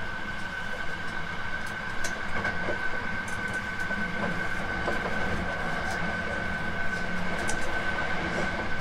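Hankyu 9300 series electric train running at speed, heard from inside the car: a steady rumble of wheels on rail with a steady high tone over it and a few sharp clicks now and then.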